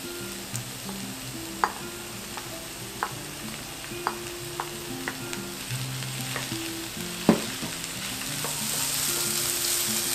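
Diced vegetables and chopped fried tofu sizzling as they are stir-fried in a non-stick wok, with a wooden spatula scraping through them and knocking against the pan a few times. The sizzle grows louder near the end.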